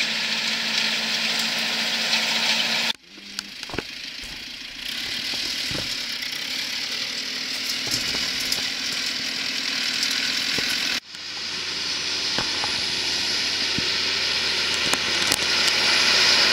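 Farm tractors running in the field. The engine sound changes abruptly twice, about three seconds in and again about eleven seconds in, as each shot gives way to another tractor.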